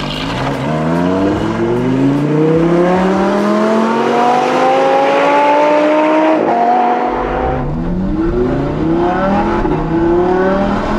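High-revving performance car engine accelerating hard. Its pitch climbs steadily for about six seconds, then falls at an upshift about seven and a half seconds in and climbs again.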